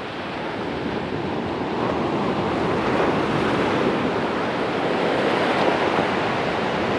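Sea waves washing on the shore: a steady rushing that builds over the first few seconds and then holds.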